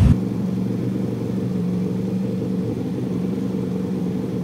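Boat engine running steadily at low speed: an even, low drone that holds level throughout.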